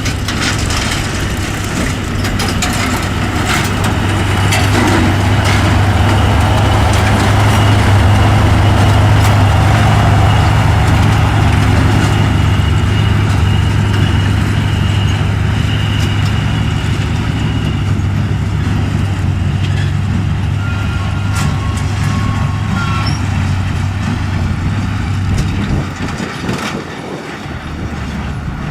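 Diesel engine of heavy farm machinery running steadily with a deep hum, growing louder over the first several seconds, then easing and dropping lower near the end.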